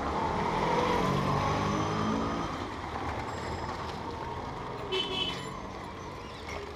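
Street traffic noise with a motor vehicle's engine passing close, its pitch falling over the first couple of seconds as it goes by. A brief high-pitched beep comes about five seconds in.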